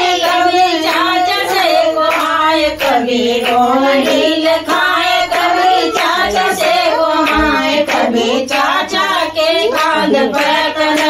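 Group of women singing a Hindi devotional Krishna bhajan in unison, with steady handclaps keeping the beat at about two claps a second.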